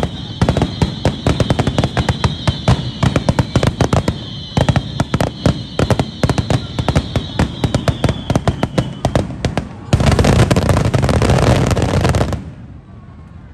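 Aerial fireworks going off in quick succession, many sharp bangs and crackles close together, with a high whistling tone above them that sinks slowly and fades about nine seconds in. About ten seconds in the bangs merge into a dense, continuous barrage for a couple of seconds, which cuts off suddenly.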